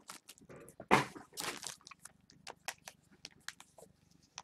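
Scattered light clicks, taps and rustles of things being handled, one louder knock about a second in.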